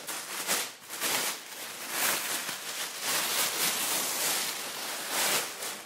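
Plastic packaging bag rustling and crinkling in uneven bursts as a folded electric scooter is pulled out of it.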